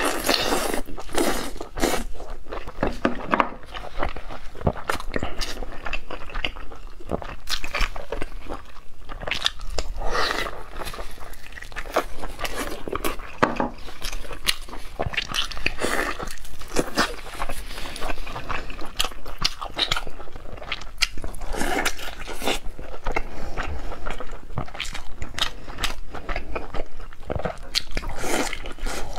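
Close-miked eating: a person biting into and chewing chunks of braised meat, with irregular mouth smacks and clicks throughout.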